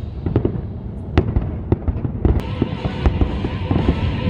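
Aerial fireworks shells bursting: a rapid, uneven series of sharp bangs and crackles. Music comes in underneath about halfway through.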